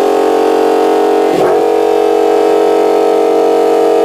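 Supercharged 6.2-litre Hemi V8 of a 2015 Dodge Challenger SRT Hellcat running at a steady idle with a pitched, even note; the note briefly wavers about one and a half seconds in.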